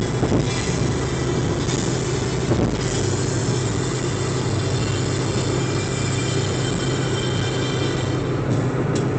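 Steady road and engine noise of a car cruising on a highway, heard from inside the cabin.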